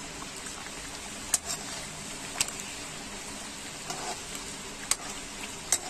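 Chicken kachoris deep-frying in hot oil in a wok: a steady sizzle. A slotted spoon knocks against the pan four times as the kachoris are turned.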